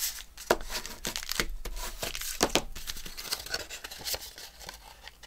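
Paper and card being handled: a bone folder rubbed along a fold to crease card stock, then the card rustling and tapping on the table, with several short sharp scrapes.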